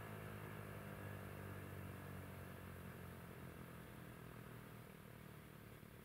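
ASC T-128 electromechanical warning siren winding down after its alert, its head no longer turning. A faint low hum of several pitches sinks slowly and fades.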